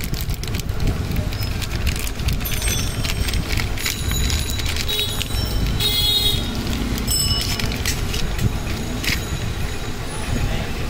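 Clear plastic packaging crinkling and rustling as brake pads are pulled out of their bag, over a steady low rumble of street traffic. A few short high tones ring out, one about six seconds in.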